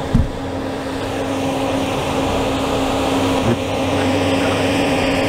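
Steady mechanical drone of boat machinery running, with a constant hum, from the 69-foot yacht lying at the dock. A low thump comes right at the start.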